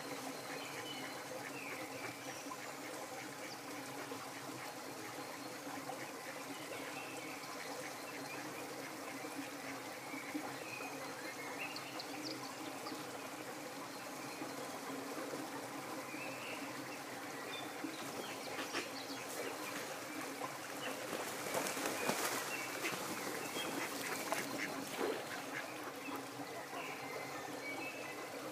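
Waterfowl giving scattered short calls over a steady background hiss, with a louder stretch of clicks and rustling about three-quarters of the way through.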